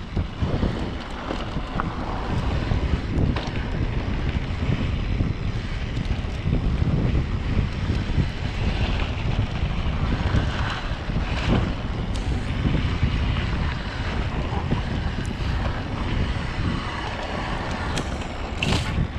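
Wind buffeting the microphone over the rolling of mountain-bike tyres on a dirt trail, with scattered small clicks and rattles from the bike, and a brief swish near the end.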